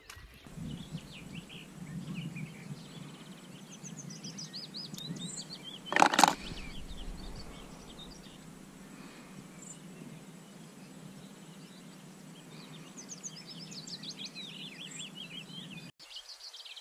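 Small songbirds chirping and twittering in quick short phrases, with one short, sharp clack about six seconds in, louder than everything else.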